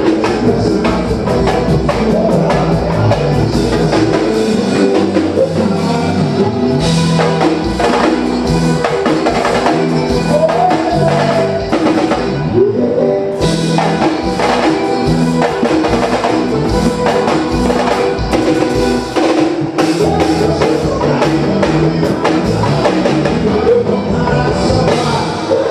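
Live band playing on stage: electric guitar, keyboard, drum kit and percussion with a singer, loud and steady, the cymbals briefly dropping out near the middle.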